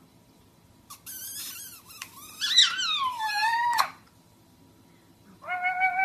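Parrot screeching and chattering into a cardboard tube: harsh squawks with sweeping, falling whistled glides from about a second in until about four seconds in. A short pitched call follows near the end.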